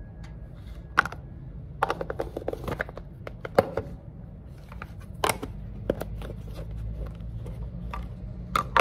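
Insulated lunch-box containers and their plastic lids being handled and set down: scattered clicks and knocks, with a quick run of clicking about two seconds in, over a low steady hum.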